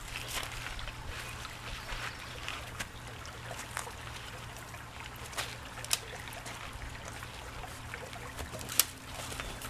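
Shallow creek trickling and flowing steadily, with scattered light snaps and ticks from a small freshly lit dry-grass and twig fire.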